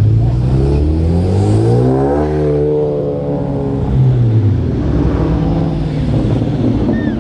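Cars accelerating away one after another, engines revving close by. One engine climbs steadily in pitch for about two seconds before easing off, and more cars, including Dodge Challengers, follow at lower revs.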